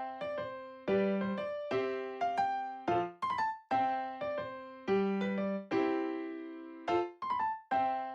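Background music: a light piano or electric piano tune, with notes struck in a repeating pattern, each ringing and fading.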